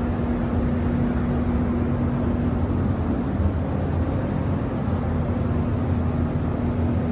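Paint booth ventilation fans running: a steady rush of moving air with a low rumble and a constant hum.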